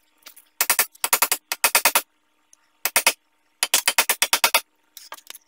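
A metal hand tool working against the front wheel hub assembly, making short bursts of rapid, sharp metallic clicks, four to eight at a time, with brief pauses between them.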